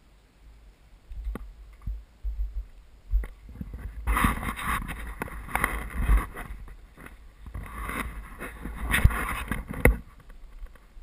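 Rustling, scraping and knocking of someone clambering over loose rock with the camera in hand. It starts as a few scattered knocks, turns into a dense run of scuffs and sharp knocks about four seconds in, and dies down near the end.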